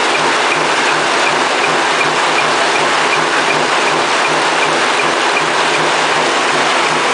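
Shellfish washing machine running: a steady rush of spraying water over the shells, with a regular mechanical beat of about four to five a second from the machine.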